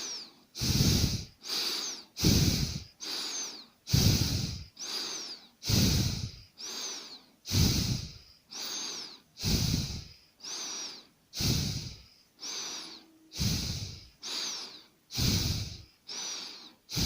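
A person breathing hard and forcefully, in and out, about one breath sound a second, the stronger breaths alternating with weaker ones.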